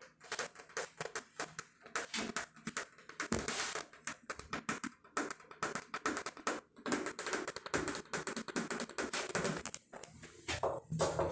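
ASMR tapping on assorted objects: rapid, irregular taps and clicks in quick runs, close to the microphone.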